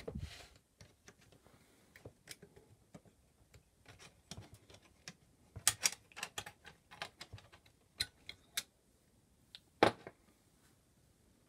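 Irregular small clicks and light knocks of the plastic and metal parts of a Quick Disk drive mechanism being handled by hand, with a cluster of sharp clicks around six seconds in and a single louder click about ten seconds in.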